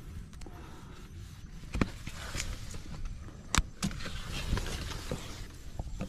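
Close handling noise: rustling and crackling of leaves and sticks with a few sharp clicks, the loudest about three and a half seconds in, over a low rumble.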